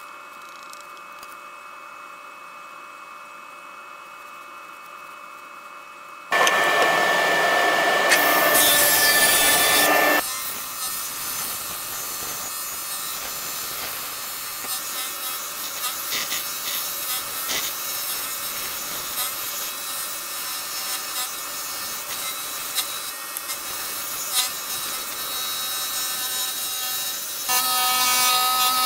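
DeWalt scroll saw cutting a thick black walnut board, its fine blade rasping steadily through the wood. The cutting starts suddenly about six seconds in, loudest for the first few seconds, and its tone changes near the end.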